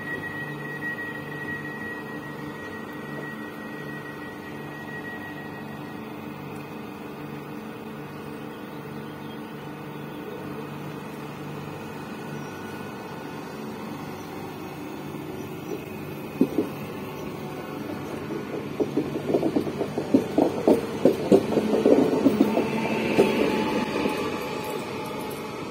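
Pesa Elf electric multiple unit pulling away from a station platform: a steady electric hum with a high tone at first, then a growing clatter of wheels knocking over rail joints and points, loudest in the last few seconds, with motor tones rising as it picks up speed.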